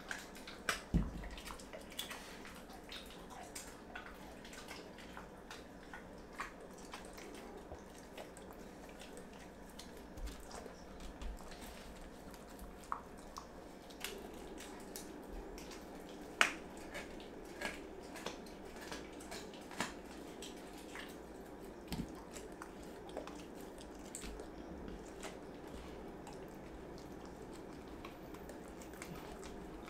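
A dog eating raw food: irregular wet smacks, clicks and chewing from its mouth as it eats.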